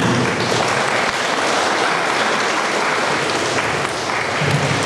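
Audience applauding: steady clapping from many hands. A voice comes in over it near the end.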